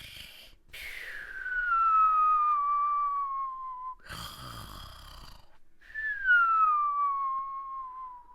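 A person imitating snoring, cartoon-style: a rasping snore on the in-breath, then a whistle on the out-breath that falls steadily in pitch. This happens twice.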